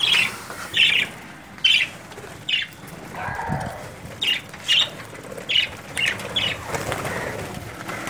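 Budgerigars flapping their wings and giving short, high chirps, roughly one a second, as they flock down to a freshly filled seed bowl.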